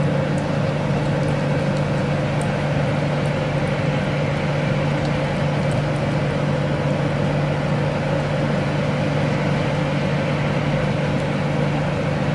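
A steady mechanical hum, unchanging throughout, with a few faint clicks.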